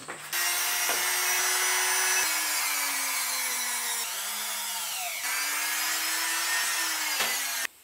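Small handheld electric drill running and boring screw-eye holes into a pine swimbait body. The motor's whine sags as the bit bites into the wood and picks up again, twice, then cuts off suddenly near the end.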